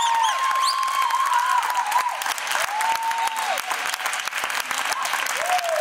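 Audience clapping: a dense, uneven patter of many hands, with a few short calls rising and falling in pitch over it.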